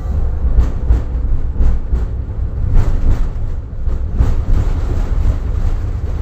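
Tatra KT4Dt tram running along the track: a steady low rumble with irregular sharp clacks from the running gear.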